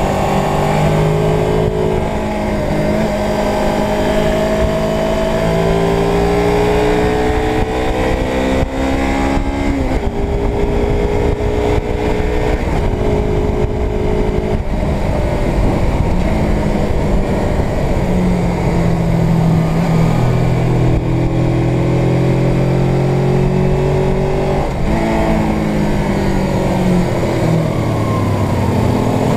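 Suzuki GS 500's air-cooled parallel-twin engine under way. Its pitch climbs and then drops back several times as the rider goes through the gears, over a steady rush of wind on the microphone.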